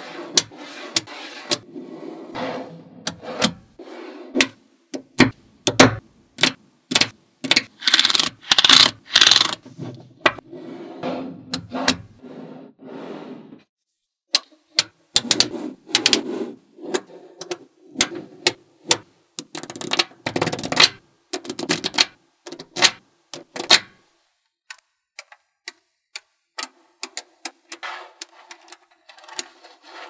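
Small magnet balls clicking and snapping together as slabs of them are set down and joined on a tabletop: sharp, irregular clicks, with a quick clattering run about eight to ten seconds in and a short quiet stretch about two thirds of the way through.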